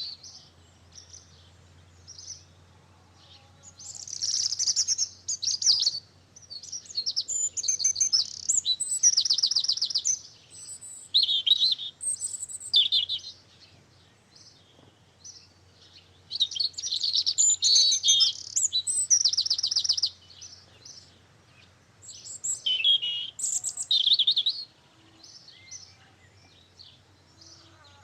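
A songbird singing: phrases of fast, high trills and twittering a few seconds long, with short pauses between them.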